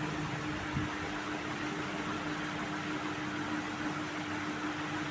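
Steady room hum: an even hiss with one constant low tone underneath, like a running fan or air conditioner, and one faint tick about a second in.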